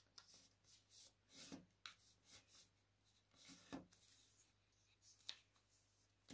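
Faint rustling and crinkling of a sheet of paper being folded by hand, a few short strokes as folds are pressed and creased, over a faint low hum.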